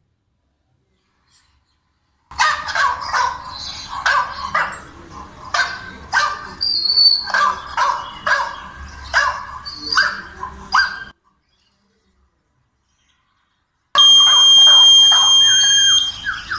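Recorded dog barking played through a phone speaker, quick repeated barks about two a second for roughly nine seconds. After a short silence the barking starts again and a piezo buzzer gives a steady high beep for about two seconds: the tracker's alarm that its microphone has detected an animal sound.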